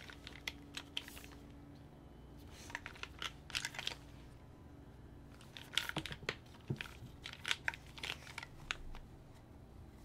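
A metal-cased mechanical keyboard being handled and turned over: fingers tapping and rubbing on the case and loose light clicks, in three scattered bunches, with one duller knock about two-thirds of the way through.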